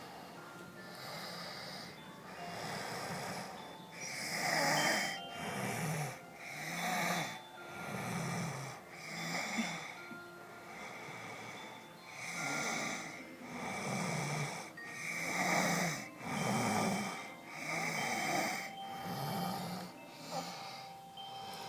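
A sleeper snoring, with repeated snores about a second or so apart, growing louder a few seconds in and pausing briefly near the middle.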